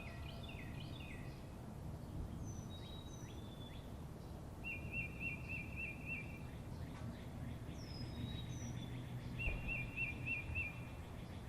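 Songbirds chirping and calling, with short slurred whistles and a quick trill of about five notes that comes twice, over a steady low rumble of background noise.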